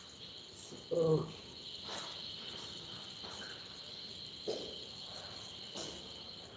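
Steady, high-pitched chirring of insects, picked up at low level. There is a brief vocal sound about a second in and a few faint clicks.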